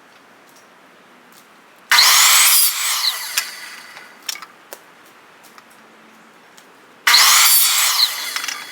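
Power saw making two short cuts about five seconds apart, each starting suddenly and lasting just under a second, with a falling whine as the blade winds down afterwards. These are cuts of lengths of pipe for the rack.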